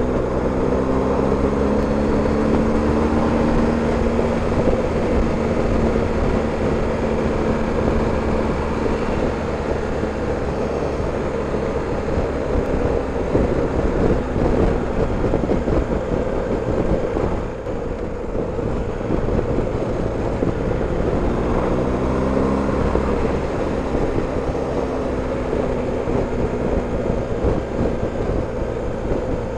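BMW R 1250 GS Adventure's boxer-twin engine running under way, under a steady rush of wind and road noise. The engine note rises as the bike accelerates, once near the start and again about three-quarters of the way through.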